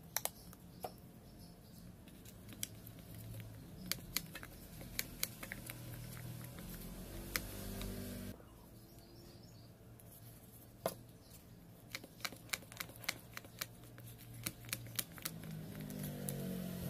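A metal spoon stirring a thick white slime mixture in a plastic bowl: soft sticky squelching with many sharp, irregular clicks of the spoon against the bowl.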